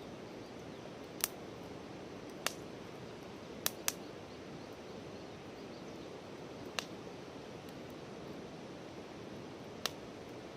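Wood campfire crackling: six sharp, irregular pops from the burning firewood over a steady soft hiss.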